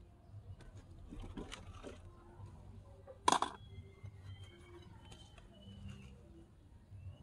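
Small kindling fire burning in a miniature brick stove, with faint scattered crackles and one sharp pop about three seconds in.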